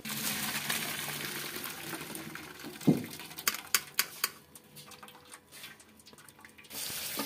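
Water running and splashing into a stainless-steel sink as boiled turnip pieces drain in a wire-mesh strainer. There is a sharp metal knock about three seconds in, then a few lighter clicks. The water dies down for a few seconds and then runs strongly again near the end.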